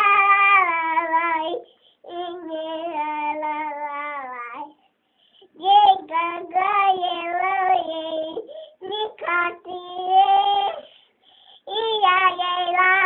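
A child singing alone, without accompaniment: held notes with a slight vibrato, in phrases broken by short pauses.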